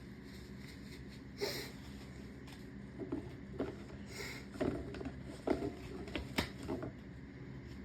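A person sniffling: a few short sniffs through the nose, with small clicks and rustling in between.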